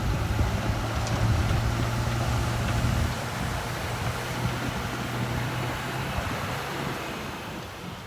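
Komatsu D53E crawler bulldozer's diesel engine running with a steady low hum, easing off after about three seconds and fading toward the end.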